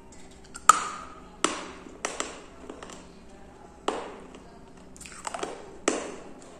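Close-up biting and crunching of broken terracotta kulhad (clay cup) shards: about six sharp crunches, each trailing off, the first the loudest with a brief ring.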